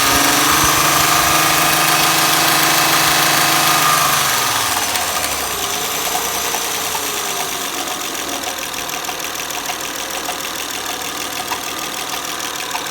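Honda Accord engine just after starting, running at a raised idle for about four seconds and then settling to a lower idle, with a fast, light repeating chirp. The chirp stays with the drive belt removed and was traced to a damaged camshaft lobe.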